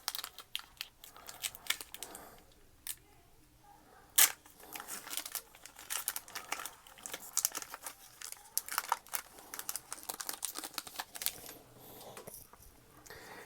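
Crinkling and crackling from handling a foil booster pack and its trading cards, with many short clicks and one sharp snap about four seconds in.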